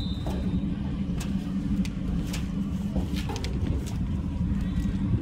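Football field sideline ambience: a steady low rumble with scattered sharp knocks and clicks while a play runs, and the end of a referee's whistle in the first moment.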